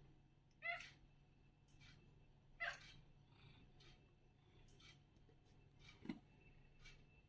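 Maine Coon cat giving two short chirping calls about two seconds apart, then a fainter low call about six seconds in, with faint small clicks in between.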